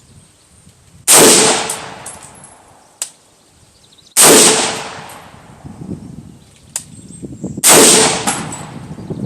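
9mm pistol-caliber carbine firing three single aimed shots about three seconds apart, each sharp crack trailing off over a second or so.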